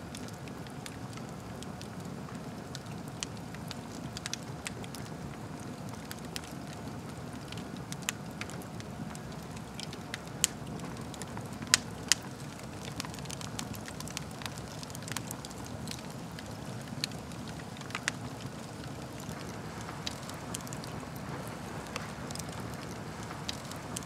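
Wood fire burning in a fireplace: a steady low rumble of flames with scattered sharp crackles and pops, the loudest two close together about halfway through.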